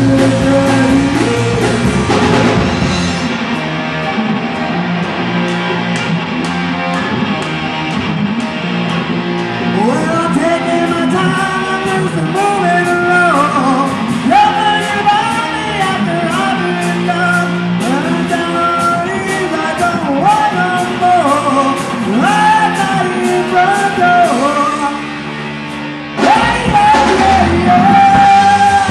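Live rock band with a male lead singer, electric guitar and drums playing a song. About three seconds in, the bass end drops away for a quieter stretch over steady cymbal ticks while the singing carries on, and near the end the full band comes crashing back in loud.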